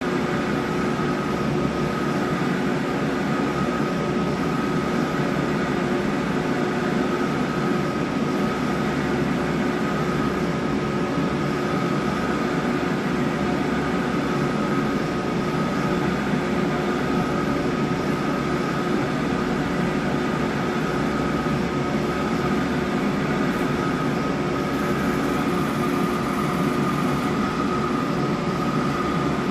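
3D Systems ProJet MJP 2500 Plus multi-jet 3D printer running with a steady mechanical whir, a constant low hum and a higher steady whine over it, unchanging throughout; a noise the owner finds strange and abnormal for the machine.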